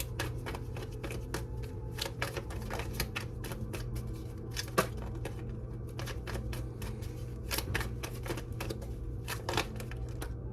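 Tarot cards being shuffled by hand: a dense, irregular run of papery clicks and snaps, over a steady low hum.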